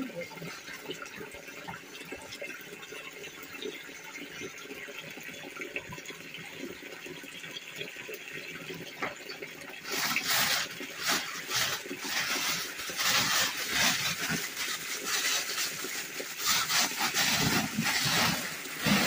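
Steady background hiss, then from about halfway through loud, irregular rustling and crinkling of a nylon tarp being bundled and stuffed into a bag.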